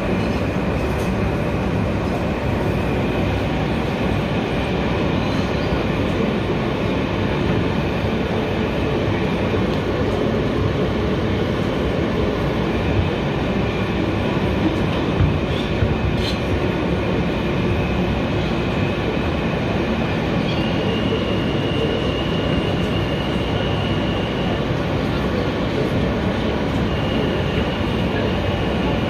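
Kawasaki R160B subway train running between stations, heard from on board: a steady rumble of wheels on rail, with a thin high whine that runs through much of it and steps up in pitch about two-thirds through.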